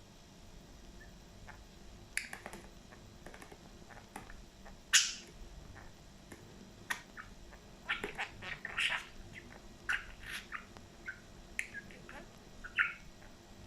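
Budgerigar making a string of short, sharp chirps and squawks at irregular intervals, the loudest about five seconds in.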